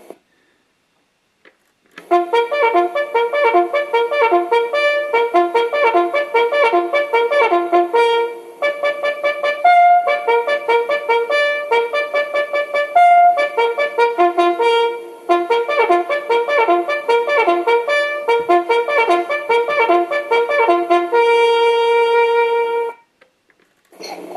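A trumpet-like brass melody of quick, separate notes with a few longer ones. It starts about two seconds in and ends on a long held note near the end.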